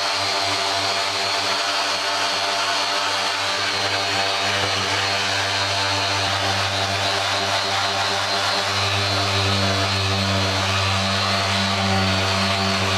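Handheld electric sander running steadily as its pad is worked over a primed plastic motorcycle fairing. The motor's hum grows a little fuller about nine seconds in.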